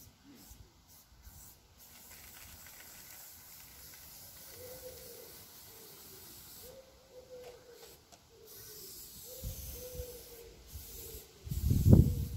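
Aerosol spray paint can hissing in long strokes, with short breaks between them, as paint goes onto the wall. A brief low rumble near the end is the loudest sound.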